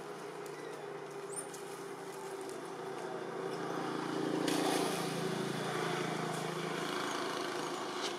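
Engine of a passing motor vehicle droning, swelling to its loudest near the middle and then fading.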